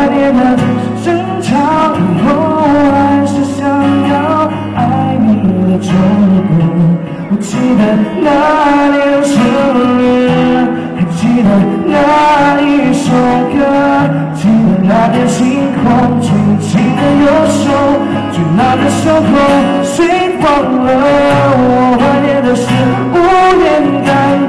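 A pop song performed live: a singer's voice amplified through stage speakers over instrumental accompaniment, with a steady beat.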